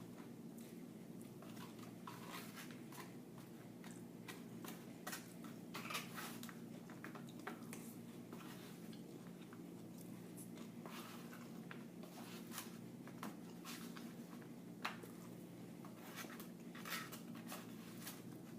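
A person chewing and eating close to the microphone, with scattered small clicks and crackles over a steady low hum.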